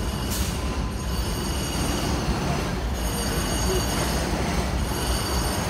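Open-air passenger tram moving: a steady rumble of motor and wheels, with faint steady high-pitched whines above it, heard from a seat on board.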